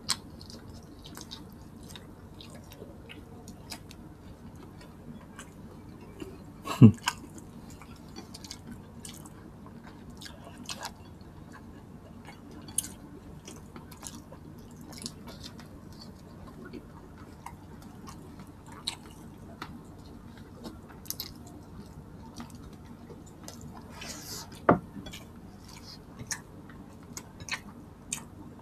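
Close-miked eating sounds: chewing of pork and rice eaten by hand, with many scattered light clicks of bones and dishes on a glass-topped table. Two sharper knocks stand out, about 7 and 25 seconds in.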